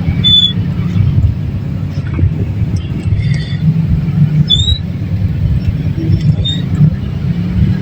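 Steady low rumble of road traffic, with a few brief high chirps scattered through it.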